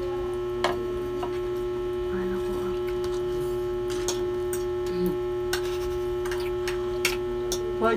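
Steady electrical mains hum with a held tone in it, and now and then short clicks of forks and spoons against plates as noodles are served and eaten.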